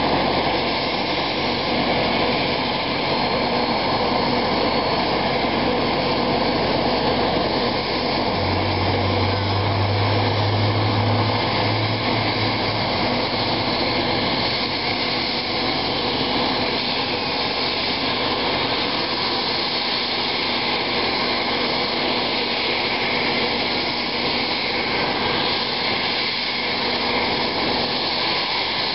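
Black Hawk helicopter's turbine engines running with a steady whine and hiss as the main rotor turns slowly on the ground. A low drone joins about eight seconds in and fades out some five seconds later.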